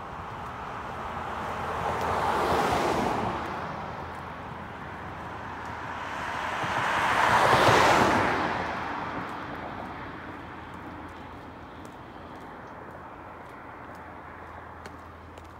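Two cars pass one after the other on the road, their tyre and engine noise swelling and fading: the first peaks about two to three seconds in, and the louder second peaks about eight seconds in.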